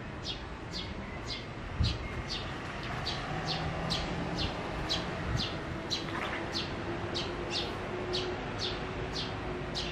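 Bird chirping over and over: short, high chirps, each falling in pitch, about two a second.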